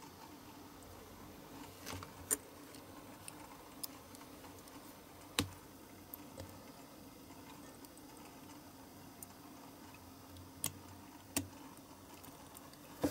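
Sparse, faint clicks and taps as the diecast metal body and baseplate of a small Matchbox model are handled and pressed together, with a low steady hum underneath.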